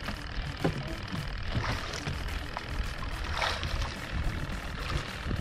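Steady sea and wind noise aboard a small wooden outrigger fishing boat, a continuous low rumble with a few brief knocks and splashes, the clearest about three and a half seconds in.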